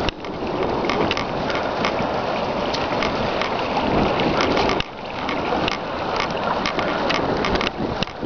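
Shallow stream babbling over stones, a steady rushing of water with many small crackling splashes; it drops suddenly for a moment about five seconds in.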